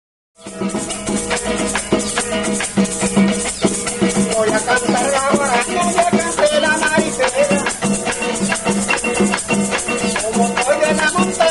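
Venezuelan llanero folk music: maracas shaken in a fast, steady rhythm over plucked strings. It starts abruptly after a split second of silence, and a voice sings over it from about four seconds in.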